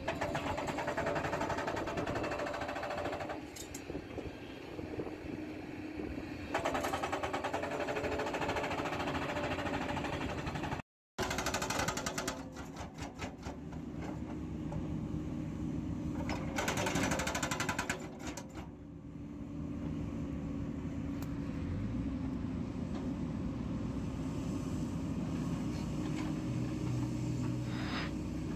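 Excavator-mounted hydraulic rock breaker hammering rock in several bursts of rapid blows, each a few seconds long, over the steady running of the excavator's diesel engine. From about two-thirds of the way through the hammering stops and only the engine and hydraulics drone on steadily. There is a brief total dropout near the middle.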